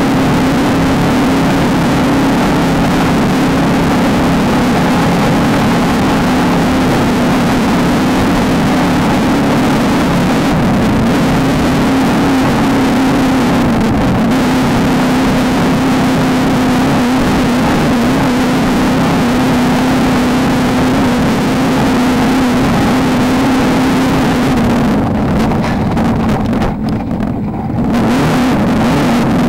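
Off-road race car engine running hard at steady high revs under a dense rush of noise. About four seconds from the end the engine eases off briefly and the sound drops, then it comes back up.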